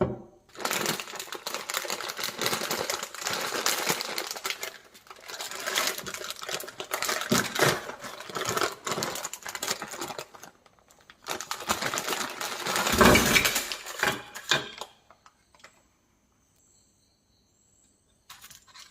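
Plastic wrappers of Twix Minis crinkling and rustling as the pack is handled and opened, in two long stretches with a louder handling knock in the second, then quiet until a brief rustle near the end.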